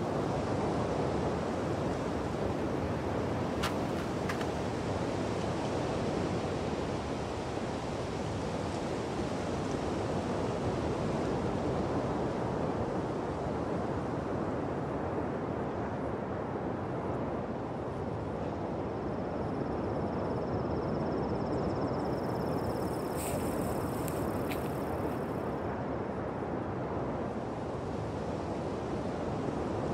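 Steady rushing noise of riding along a gravel trail: wind on the microphone over tyre and gravel rumble. There are a couple of faint clicks about four seconds in, and a thin high tone with a hiss in the second half.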